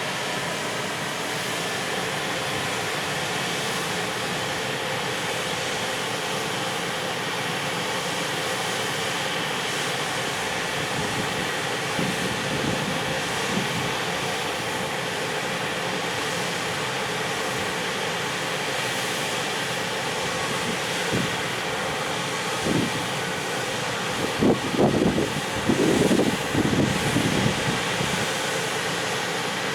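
Steady noise of a container freight train hauled by an EF510 electric locomotive, with a few irregular knocks in the second half, most of them clustered near the end.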